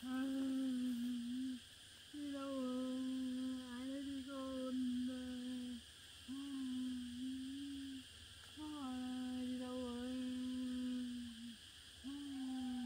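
A woman's voice humming in long, low, fairly level notes, about five phrases with short pauses between them.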